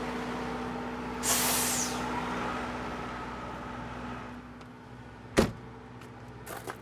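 A vehicle engine idling with a steady hum. A brief hiss comes about a second in, a single sharp thump about five seconds in, and a few light clicks near the end.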